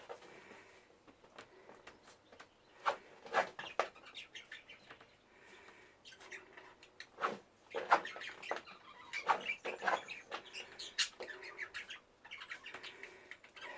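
A hen making soft chirps and clucks, with irregular bouts of scratching and rustling as she settles to lay.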